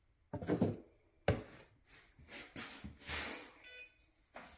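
Flour being scooped and poured into a plastic bin on a scale: soft rustling with a knock about a second in, and a brief high-pitched tone near the end.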